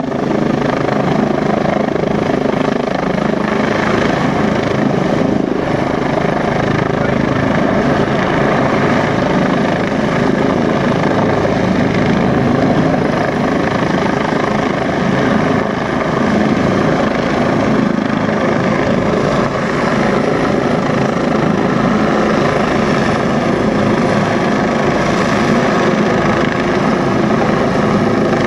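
Rescue helicopter hovering low overhead, its rotor and turbine engine running loud and steady, with a few held tones in the noise.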